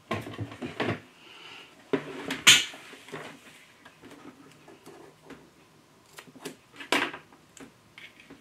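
Knocks, taps and rustles of papercraft supplies handled on a desktop: a large roll of foam tape is brought over and set down, and foam tape is stuck to a die-cut paper piece. Several sharp knocks come in the first second, a louder scraping rustle about two and a half seconds in, and a few light clicks near the end.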